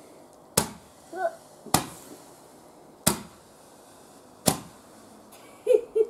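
A consumer firework sold as making no bangs going off with four sharp bangs, about one to one and a half seconds apart.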